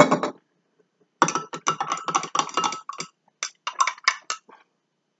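Glass stirring rod clinking rapidly against the inside of a small glass beaker as the solution is stirred during a titration, with a faint glassy ring. A quick run of clinks is followed by a few more near the end.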